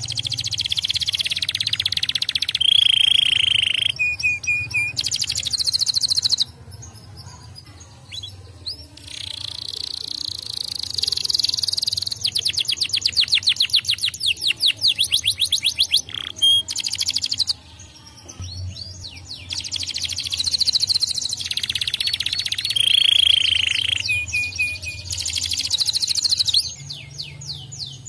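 Domestic canary singing: long phrases of rapid trills and rolls mixed with a few short held whistled notes, separated by brief pauses.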